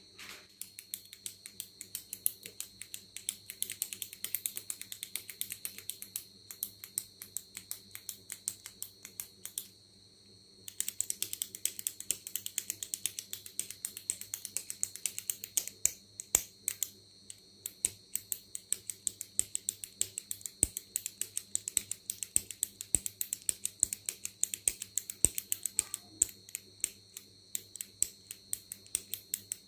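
Click pen being clicked over and over, sharp clicks coming several a second in quick uneven runs, with a pause of about a second some ten seconds in.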